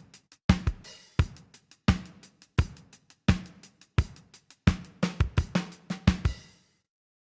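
Drum kit loop with kick and snare hits about every two-thirds of a second under hi-hats, a quicker run of hits near the end, then it stops abruptly into silence.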